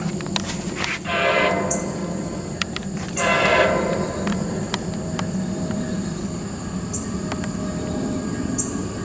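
Air horn of an approaching Union Pacific diesel locomotive, sounded in two blasts just under a second each, about two seconds apart, over a steady low rumble.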